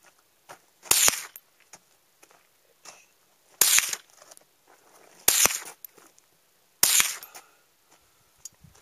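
Four shots from a Marlin Papoose semi-automatic .22 LR rifle, fired at an unhurried pace about two seconds apart, each a sharp crack that trails off briefly.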